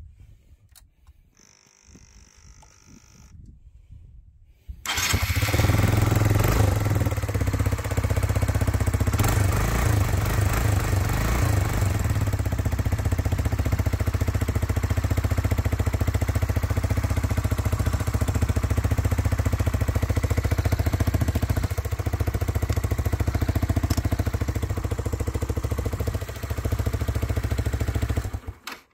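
Motorcycle engine being jump-started after sitting for weeks: after a faint whirr it catches about five seconds in and idles steadily for over twenty seconds, then cuts off suddenly near the end.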